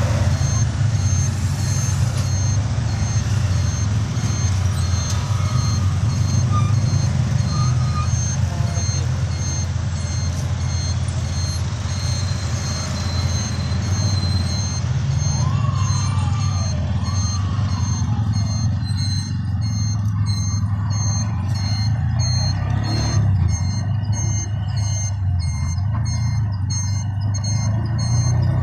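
A vehicle engine running steadily, with a regular high-pitched beeping repeating over it.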